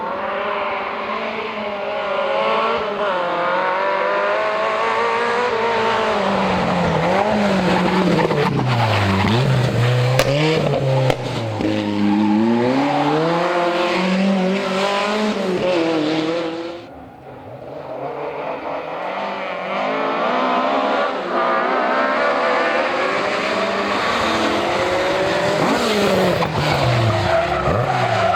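Historic rally car engines driven hard on a special stage, the revs climbing and falling again and again through gear changes and corners, with tyre squeal. The engine sound dies away briefly about two-thirds of the way through, then another engine builds up again.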